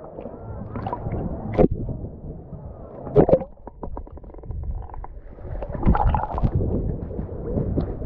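Sea water sloshing and gurgling close to the microphone, with sharp splashes that swell and fall back unevenly.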